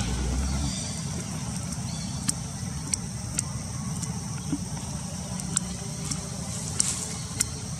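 Outdoor forest ambience: a steady low rumble and high hiss, with scattered sharp clicks and snaps every second or so.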